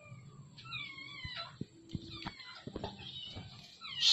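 A small pet's high-pitched cries: several short wavering calls with a few light taps and clicks between them, and one brief, sharp, loud sound right at the end.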